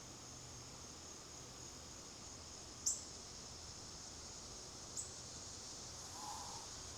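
Steady high-pitched trilling of an insect chorus, with two short, sharp bird chip notes about three and five seconds in.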